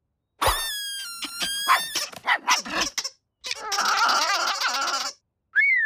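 Cartoon dog vocal effects: a long high whining cry that dips and rises in pitch, then a few short yelps, then a rough wobbling growl-like stretch, ending with a quick falling whistle-like glide.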